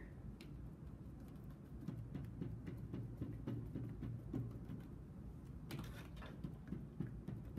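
Soft, irregular tapping of a bundle of paint-loaded cotton swabs dabbed against paper on a table, with a quicker flurry of taps about six seconds in.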